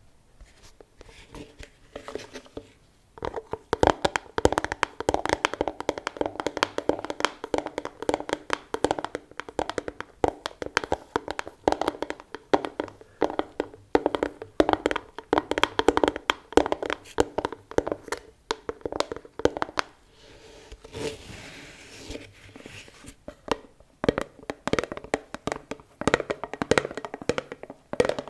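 Fingers tapping quickly and steadily on an object, many taps a second, in long runs. About two-thirds through the taps break off for a few seconds and a soft rustle is heard before the tapping resumes.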